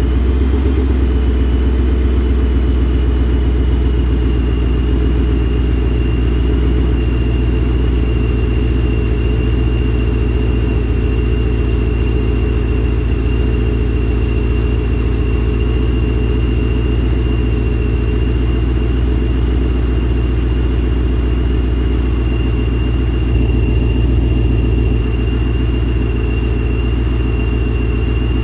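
Car engine idling steadily with a low exhaust rumble, and a faint steady high whine above it.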